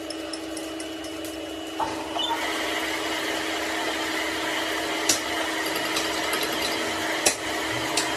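An electric workshop power tool or machine running steadily, getting noisier about two seconds in as work starts, with a few sharp clicks near the middle and end.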